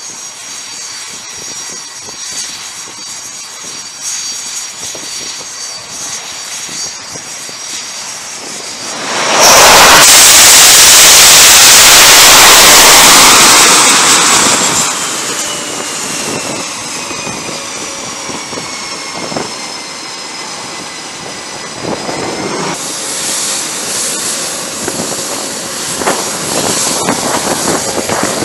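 EA-18G Growler's twin jet engines. First a steady whine as the jet approaches, then a sudden loud roar about nine seconds in as it lands on the carrier deck at full power, lasting about four seconds. After that the engines throttle back and the whine falls in pitch. In the last few seconds a steadier high whine comes from a Growler taxiing on deck.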